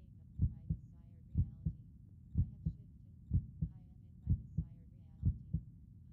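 Heartbeat sound: a steady lub-dub, each beat a stronger thump followed closely by a softer one, about once a second, six beats in all.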